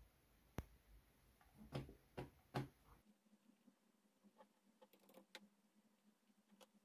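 Near silence broken by a few sharp clicks from operating a computer by hand, three of them close together about two seconds in. Later come fainter light ticks over a low steady hum.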